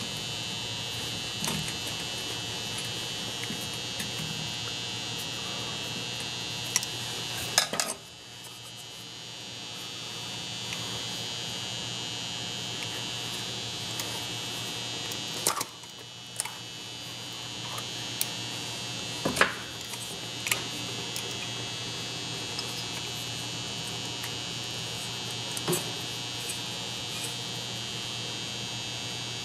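Steady electrical hum with a high whine, over which come scattered clicks and knocks of metal parts being handled as an old Hutchens air sander is taken apart by hand. The sharpest knocks fall a few times through the middle, each followed by a brief dip in the hum.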